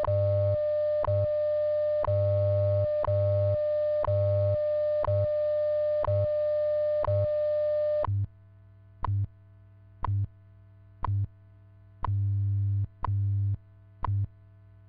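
WWV time-station broadcast: a steady 600 Hz tone with a short tick every second over the low, pulsing hum of the 100 Hz time code. About 8 seconds in the tone stops, as it does before the minute's voice announcement, leaving only the ticks and the time-code hum.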